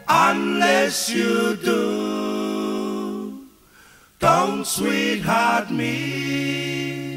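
A group of voices singing a cappella in close harmony, with no instruments. Two phrases each end on a long held chord, with a short pause between them.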